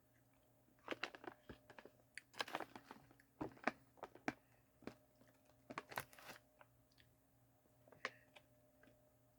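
Scattered sharp crinkles and crunches of a snack being handled and eaten from its bag, packed closely in the first six or so seconds, with one more near the end.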